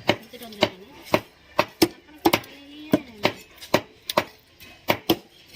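Food being chopped: a run of sharp knocks, about two a second, fairly even.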